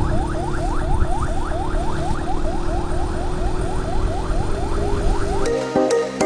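Electronic emergency siren in a rapid yelp, each wail rising quickly in pitch and repeating about four times a second, over low road and wind rumble. It cuts off near the end as music comes in.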